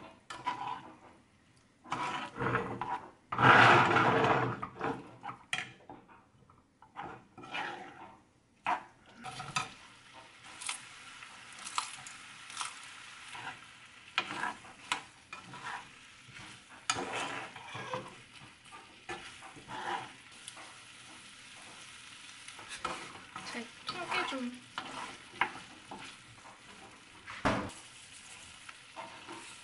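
Squid and peppers in a spicy sauce stir-fried in a frying pan: a spatula scrapes and tosses the pieces while the pan sizzles. The loudest stirring comes about four seconds in, and a steady sizzle continues under the stirring strokes later on.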